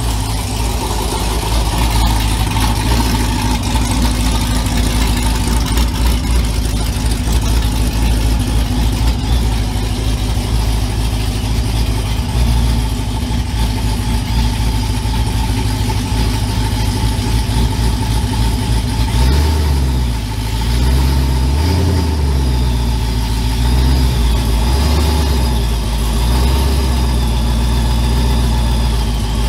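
Boosted 5.7 Hemi V8 of a Ram 1500 pickup running with a deep, steady rumble as the truck rolls slowly up and stops. In the last third the engine note shifts up and down a few times.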